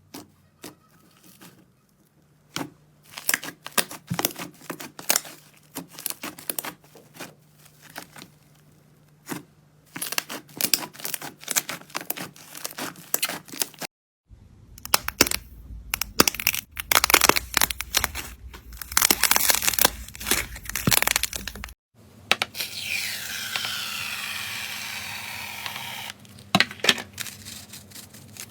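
Slime handled up close: a string of crackling pops and clicks as it is squeezed and pressed, in three separate clips, the middle one louder and denser. After the second cut comes a steady hiss lasting a few seconds, then a few more pops.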